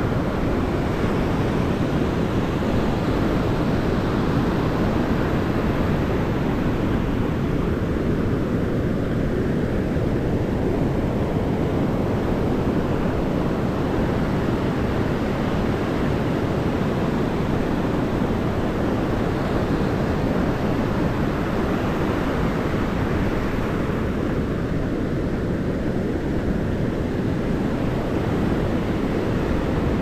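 Ocean surf breaking and washing up the sand in a steady rush that swells and eases slowly, with wind rumbling on the microphone.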